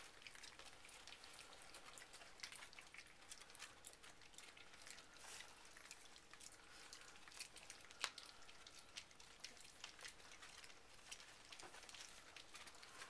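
Faint, scattered clicking and rustling of four-week-old puppies moving about on blankets and paper, with one sharper click about eight seconds in.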